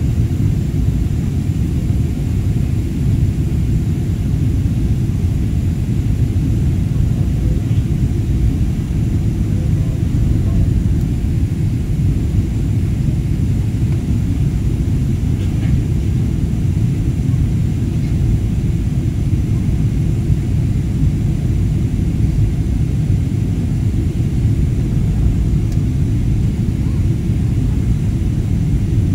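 Steady low cabin rumble inside a Boeing 777-300ER airliner on descent: engine and airflow noise heard through the fuselage, unchanging in level.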